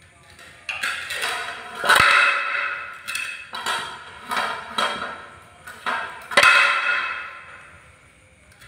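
A plate knocking and clattering on a tiled floor several times as a monkey tips it up and sets it down, each knock ringing briefly. The loudest knocks come about two seconds in and again after six seconds.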